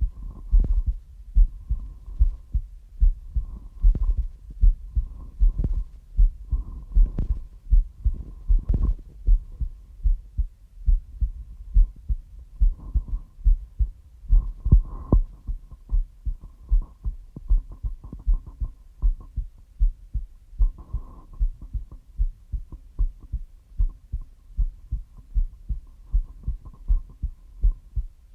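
Heartbeat: a steady, regular rhythm of low, muffled thumps, with a faint hum coming and going behind it.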